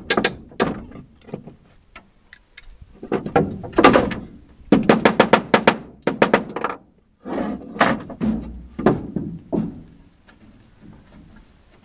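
Hammer blows on timber, nailing a wooden door frame: quick runs of several knocks a second with short pauses, thinning to single knocks near the end.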